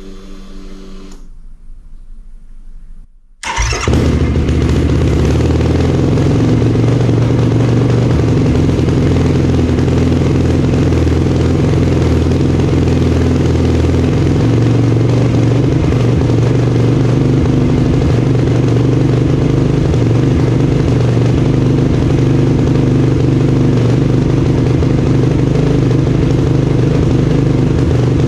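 Yamaha YFZ450R's single-cylinder four-stroke engine, started about three and a half seconds in after a short hum, then idling steadily. It is running on a newly fitted manual idle adjuster that replaces a failing idle air control valve, and the idle is being dialed in.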